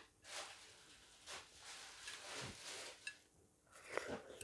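Close-up mouth sounds of eating watermelon: wet chewing with a few small clicks, then a louder bite into a wedge about four seconds in.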